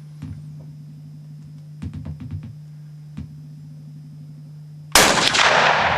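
A single gunshot from a deer hunter's firearm about five seconds in, very loud and sudden, its report fading away over the next second or more; it is the shot that drops the buck. Before it, a steady low hum with a few soft knocks.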